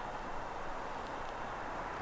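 Steady, even outdoor background rush with no distinct event in it.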